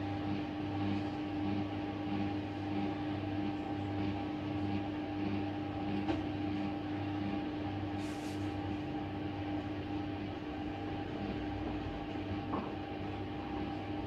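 Hoover DXOA69HC3B washing machine running through its Bathrobe cycle with a load of towels: a steady motor hum with a low pulse about twice a second, and a short hiss about eight seconds in.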